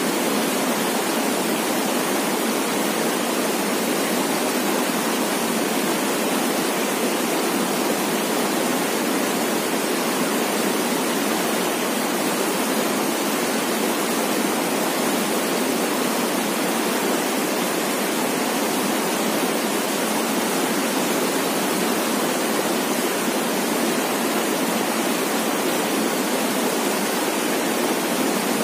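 Swift river rushing steadily over rocky rapids, an even, unbroken water noise.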